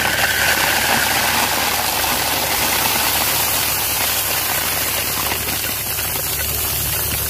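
Drainage gravel pouring in a steady rattling stream from a loader bucket onto a corrugated drain pipe and pop-up emitter, with the machine's engine running underneath as a low hum.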